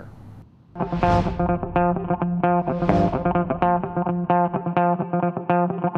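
Background music: plucked guitar notes over a held bass note, coming in a moment after a brief lull.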